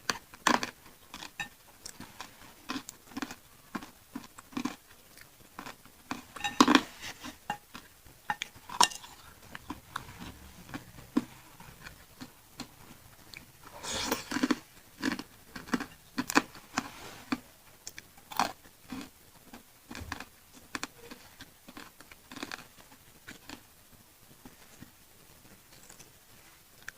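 Close-miked chewing of pentol meatballs in chili sauce: irregular wet smacks and clicks of the mouth, with louder bursts every few seconds.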